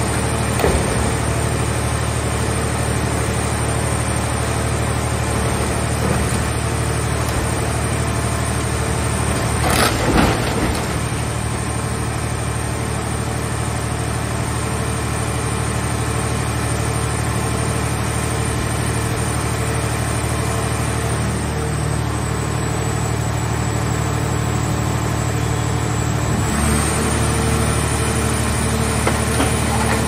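Hydraulic car baler running with a steady low machine drone while it crushes a scrap car shell. A loud crunch of metal comes about a third of the way in. Near the end the drone's tone shifts as the press comes under a new load.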